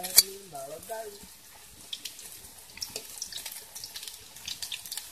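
Banana blossom balls frying in hot oil in a wok, with a steady fine crackle and sizzle. Near the start a single sharp click, the loudest sound, fits the metal tongs striking the wok.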